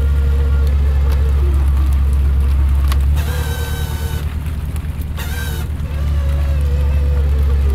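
A purse seiner's engine and deck machinery running as a steady, loud low drone, with a wavering mid-pitched tone over it. Two short, high hissing sounds come about three and five seconds in.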